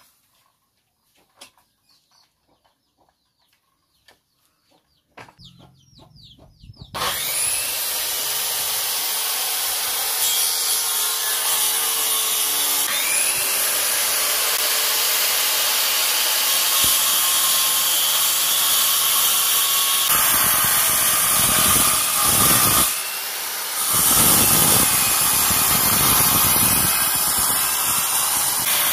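Maktec hand-held circular saw ripping a long wooden board lengthwise. After a few seconds of faint handling clicks, the saw starts up and runs loud and steady through the cut, dipping briefly for about a second about two-thirds of the way through.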